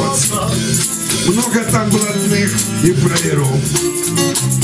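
Acoustic guitar strummed, with a shaker-like rattle keeping the beat and a man's singing voice.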